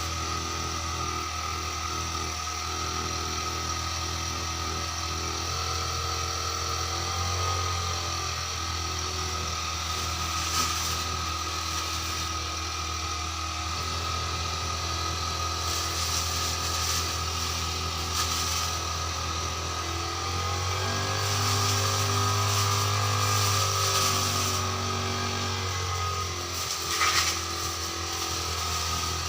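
Petrol brush cutter engine running steadily while cutting grass, its engine note shifting a few times as the load changes, with a brief sharp sound near the end.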